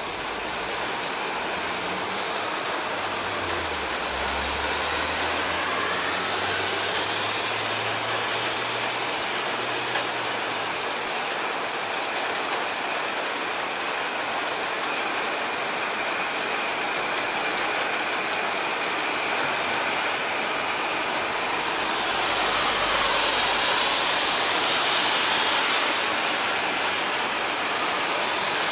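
Heavy downpour: a steady hiss of rain on roofs and street. A low hum sits underneath from about three to eleven seconds in, and the rain swells louder a little after twenty seconds.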